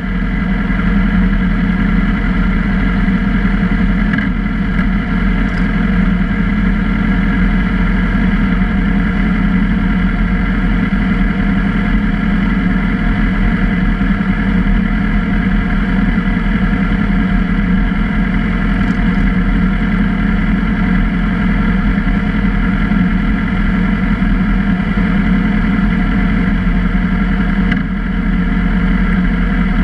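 Sport motorcycle engines idling steadily at close range, a constant drone with no revving.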